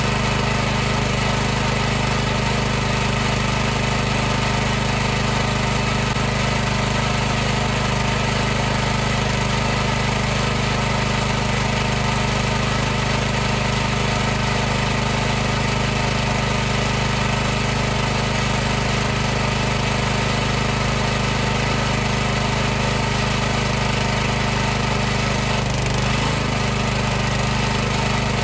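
High-pressure washer running steadily, its motor and pump giving a constant hum made of several steady tones over a hiss.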